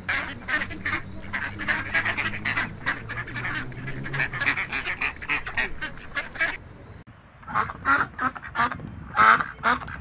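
Mallard ducks quacking: a rapid run of short quacks, a brief pause about seven seconds in, then more quacks, louder, near the end.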